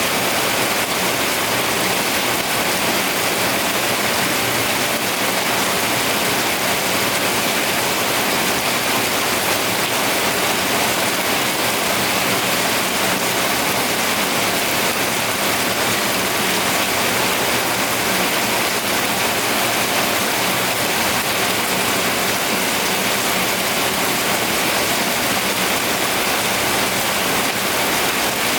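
Rain falling in a steady, even hiss that does not change.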